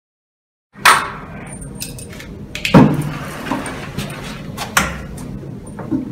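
A plastic toilet cistern being handled and set against a tiled wall: after about a second of dead silence, sharp knocks and clacks, four of them, over a steady background noise.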